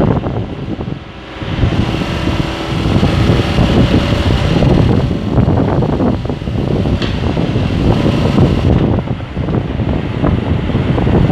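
Nissan S&B20 backhoe's engine running loudly, dropping briefly about a second in and then picking up again.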